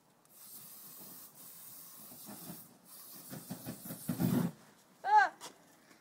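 Lynx aerosol body spray hissing out of its can in three long sprays, broken briefly about a second in and again near three seconds, aimed at a burning fire. A low rush of flame builds under the last spray and is loudest just before it stops, about four and a half seconds in.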